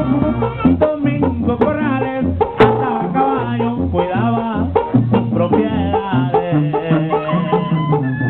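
Tamborazo band playing live: clarinets and brass carry a wavering melody over trombones and a sousaphone bass line, with a tambora bass drum beating time.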